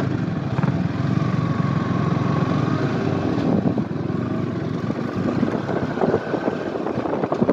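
Yamaha R15 V3's single-cylinder engine running steadily at cruising speed under the rider, with wind noise over it.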